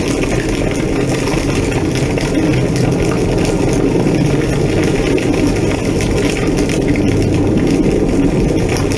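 A large house fire burning with a steady, dense low rush and scattered crackles.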